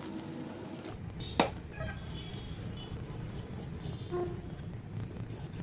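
Wire whisk stirring gram flour and water into batter in a stainless steel bowl: a sharp metal clink about a second and a half in as the whisk strikes the bowl, then quick scraping and tapping strokes. Water is poured into the flour during the first second.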